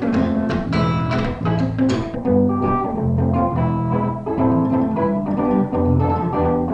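An electric guitar and an electric bass played live together, plucked notes over a low bass line. Quick runs of notes in the first two seconds give way to slower, longer-held notes.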